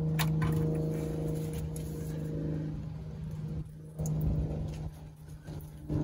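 Background music of steady held low notes, breaking off briefly a little past the middle and again near the end.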